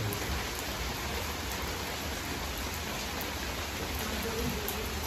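Steady, fairly heavy rain falling on a concrete courtyard and leafy garden plants, an even hiss of drops.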